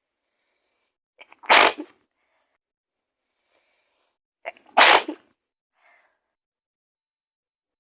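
A woman sneezing twice, about three seconds apart, each sneeze preceded by a quick catch of breath.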